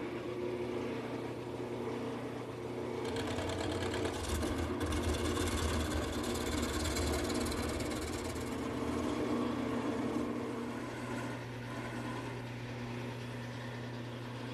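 Wood lathe running with a steady hum while a gouge roughs a square shaft blank down to round, the cutting noise heavier from about three seconds in and easing near the end.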